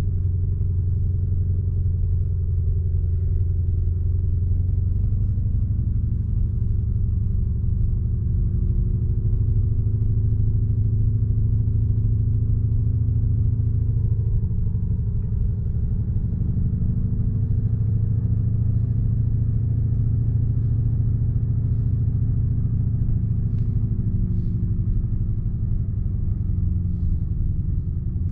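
Lamborghini Urus twin-turbo V8 engine and exhaust at a steady cruise, heard from inside the cabin. The engine note's pitch sags and rises gently a few times as the throttle and speed change.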